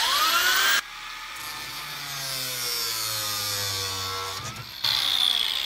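Angle grinder with a cutting disc slicing PVC conduit. It starts with a rising whine and cuts with a harsh grinding hiss for under a second, then runs on with its pitch sagging and recovering. It cuts again briefly near the end and winds down with a falling whine.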